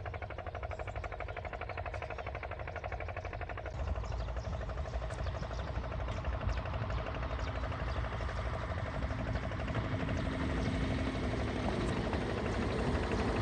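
An engine running steadily with a fast, even throb. It comes in abruptly at the start and grows a little louder about four seconds in.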